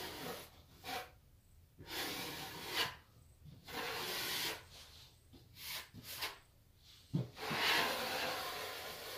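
A taping knife scraping along a plasterboard corner joint in a series of strokes, the longest near the end, pressing paper tape into wet plaster and pushing out the bubbles.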